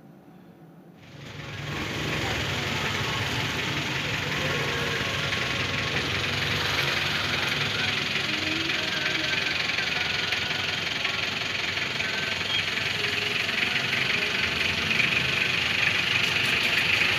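Computerised embroidery machine running: a steady mechanical clatter that starts abruptly about a second in and grows slightly louder near the end.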